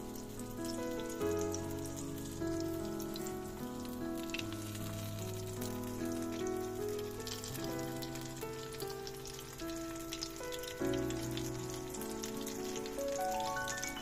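Instrumental background music of sustained notes, with a rising run of notes near the end, over the steady crackling sizzle of egg-filled tomato rings frying in oil in a pan.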